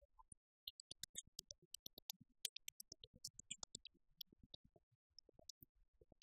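Near silence broken by faint, irregular clicks.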